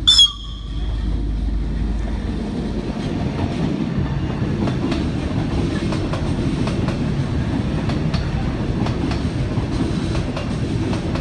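Ferrovie Appulo Lucane diesel train passing through a station: a short high horn toot right at the start, then the steady rumble of the train running by, with wheels clicking over the rail joints.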